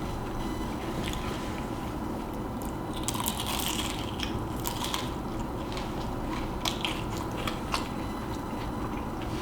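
Close-up eating sounds: chewing with crisp crunches and small wet mouth clicks, denser for a moment a few seconds in.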